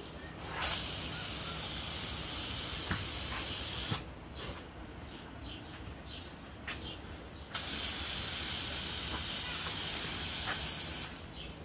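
Aerosol can of Dupli-Color primer spraying in two long hisses of about three and a half seconds each. The first starts just after the beginning and the second a little past halfway.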